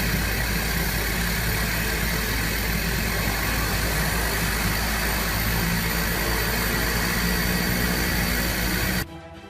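Aircraft engine running steadily at an even pitch, cutting off abruptly about nine seconds in.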